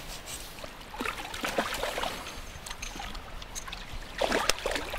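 A hooked trout splashing at the water's surface as it is played in close to the bank, with a cluster of louder splashes about four seconds in.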